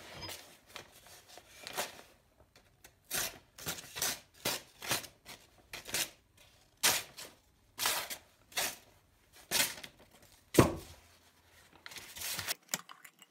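Paper rustling and crinkling in gloved hands in a run of short bursts, with one heavier knock about ten and a half seconds in.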